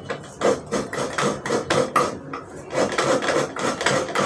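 Fresh coconut being scraped out of its half shell by hand over a steel plate: a fast run of rasping strokes, about four a second, with a short break about halfway through.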